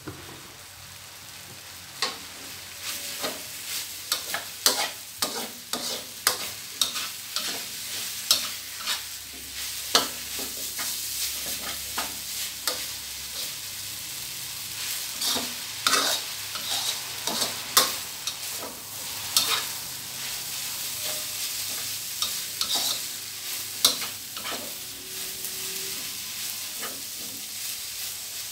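Rice vermicelli stir-frying in a wok: a steady sizzle, with a spatula scraping and knocking against the pan in irregular strokes as the noodles are tossed.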